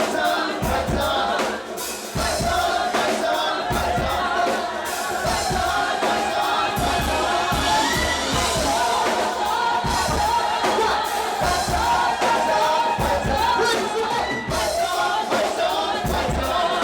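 Live reggae band playing an instrumental passage, with bass notes pulsing under a sustained melodic line.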